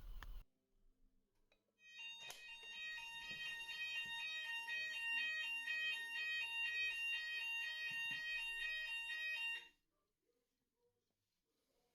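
Fire alarm sounders set off from a break glass call point for a weekly test. Electronic alarm tones pulse rapidly, starting about two seconds in and cutting off suddenly near the end.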